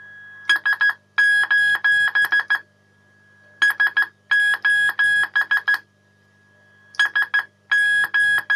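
Morse SOS hand-keyed on a 21 MHz carrier and heard as a high beeping tone from a Geloso G4/216 valve receiver switched to CW, so the keyed carrier becomes an audible beat note. It is keyed in groups of short and long beeps about every three seconds. A faint steady tone and a low mains hum run between the groups.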